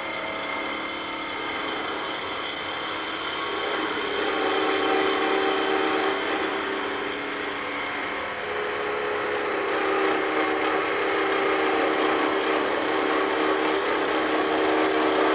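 Wood lathe running while a turning tool cuts along the spinning wooden spindle, a steady hiss of shavings over the machine's hum that grows louder about four seconds in and again past the middle as the cut bears in. The cut is taking a high spot off the tapered handle.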